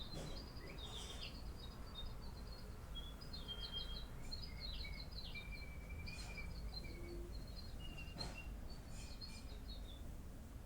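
Small birds chirping faintly in the background, in scattered runs of short high notes and trills, over low steady background noise.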